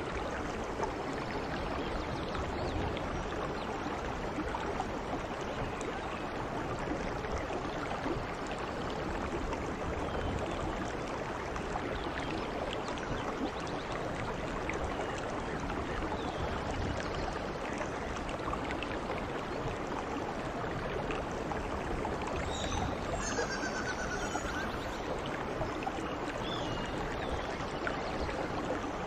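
Steady rain falling in a continuous, even hiss, with a few faint high chirps about three-quarters of the way through.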